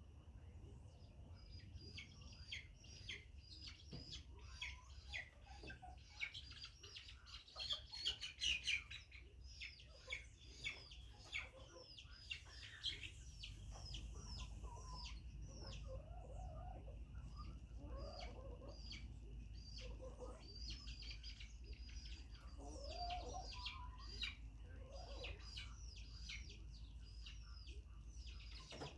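Chickens clucking, with a dense run of short, high, falling chirps over them and lower calls scattered through the second half.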